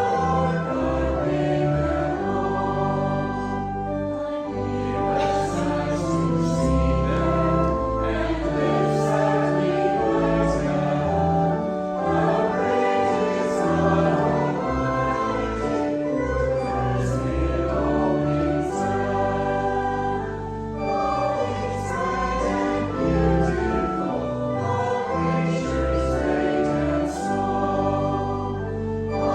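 Congregation singing a hymn together with instrumental accompaniment, held notes moving steadily over a sustained bass line.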